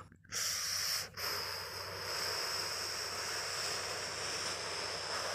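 Steady, hissing, wind-like whoosh standing for the tornado, with a brief break about a second in; it cuts off suddenly at the end.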